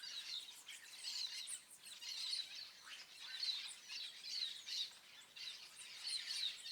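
Several birds chirping and calling over one another: quick high chirps in a burst roughly every second.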